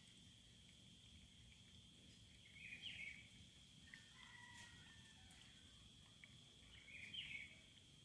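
Faint outdoor ambience: a steady high-pitched insect drone, with a short bird call about three seconds in and again about seven seconds in, and a thin whistle in between.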